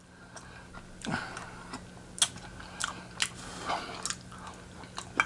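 A man chewing fried chicken close to the microphone: scattered wet mouth clicks and short crisp crunches, a few sharper ones about two and three seconds in.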